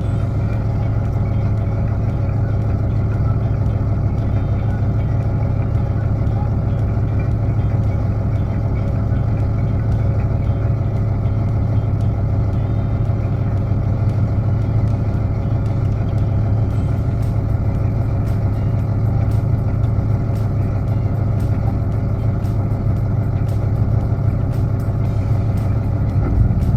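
An engine running steadily at an even speed, a constant low hum that does not rise or fall.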